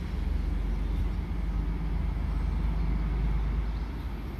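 Low, steady rumble of a pair of FS D445 diesel locomotives hauling an Intercity train as it approaches, swelling slightly and then easing off near the end.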